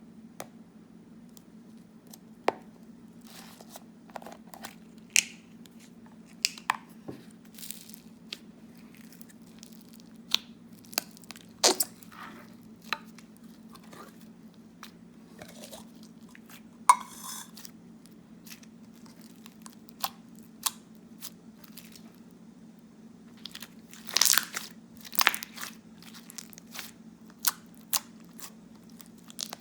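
Foam-bead slime being squeezed and pressed by hand, giving irregular crunchy crackles and pops, with a denser run of crunches about three-quarters of the way through. A steady low hum runs underneath.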